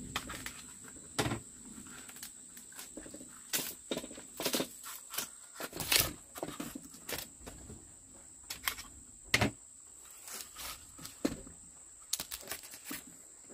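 A tube of bamboo-cooked sticky rice (cơm lam) being knocked with a knife, split and peeled apart by hand, giving irregular sharp cracks and knocks. Two cracks, about halfway through and a few seconds later, are the loudest.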